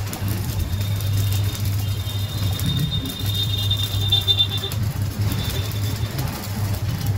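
Electric arc welding on a steel door panel: a continuous crackling arc over a steady low hum, with a thin high whine for a few seconds in the middle.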